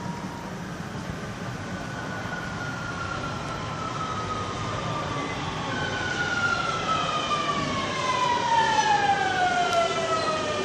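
Metro train pulling into the station, its electric traction motors whining in several tones that slide steadily down in pitch as it brakes, growing louder over a rumbling background.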